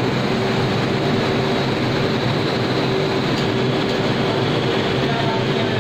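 Steady mechanical running noise with a constant hum, from a steam-heated cooking kettle with its motor-driven stirrer turning a thick batch.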